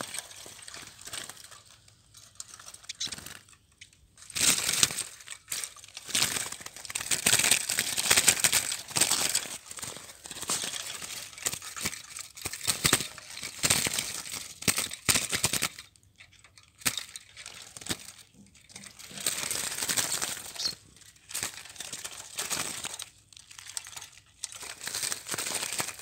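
Dry crackling and rustling in uneven spells, from caged bramblings hopping and fluttering over sunflower seed husks and against the wire mesh of wooden cages.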